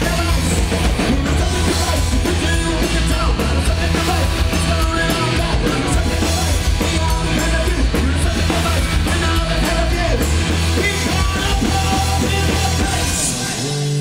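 Live punk rock band playing loudly: electric guitars, bass and a drum kit, with a singer at the microphone. The full sound thins out near the end.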